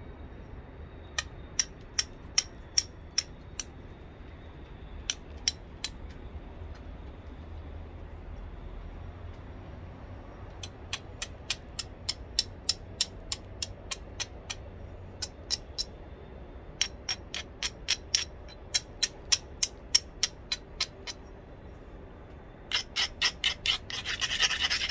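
Sharp clicking taps of a flat copper bar against the edge of a Buffalo River chert biface, in runs of several taps about three a second, chipping small flakes off the edge. Near the end an abrading stone is rubbed along the edge with a dense scratching.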